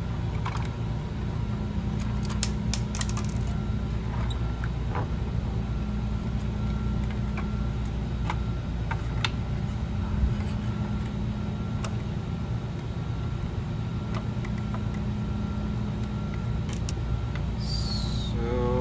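Scattered light clicks and taps of the plastic parts of a toy radio-controlled tank being handled during disassembly, over a steady low background hum.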